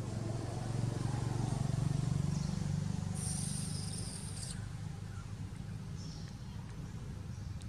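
Low steady hum of a distant engine, swelling about a second in and easing off. A brief high hiss starts abruptly about three seconds in and stops about a second later.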